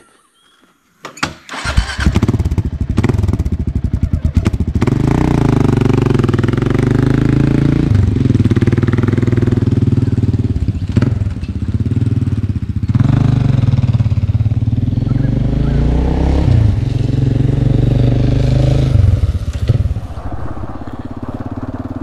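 Kawasaki KLR650's single-cylinder four-stroke engine starting about a second in, then pulling away and accelerating through the gears, its pitch climbing and dropping back at each shift, and easing off near the end.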